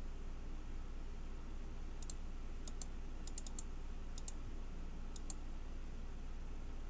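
Faint clicking of a computer's mouse and keys, a dozen or so clicks in short runs between about two and five seconds in, over a low steady hum.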